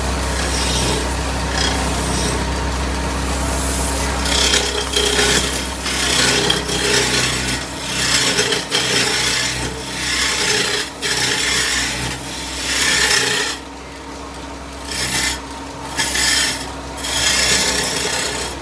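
A wooden cot leg spinning on a lathe while a hand-held chisel cuts into it: a rough scraping hiss of wood being turned, surging and easing with each pass of the tool. A steady low motor hum runs under the first half.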